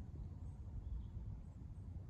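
Faint outdoor ambience: an uneven low rumble with a few faint, short bird chirps.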